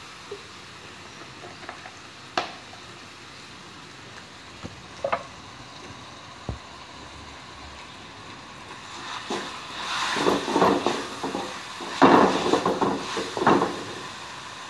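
Spice paste sizzling in oil in a wok over a gas flame, with a few sharp clicks. From about nine seconds in, a spatula stirs and scrapes the paste against the wok in a run of loud strokes.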